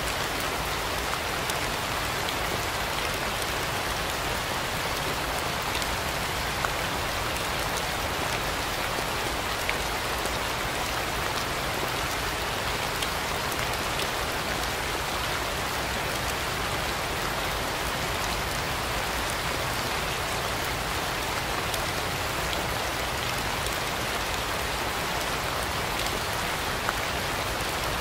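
Steady rain falling, an even hiss of many drops with a few single drops ticking louder now and then.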